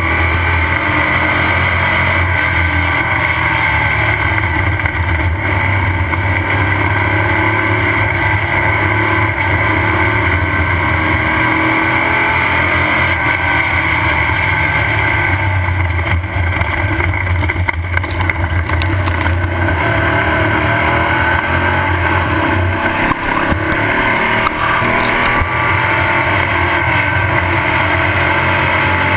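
Off-road race car's engine running hard and steady at race speed, heard from on board, with a few knocks from the car over rough ground a little past the middle.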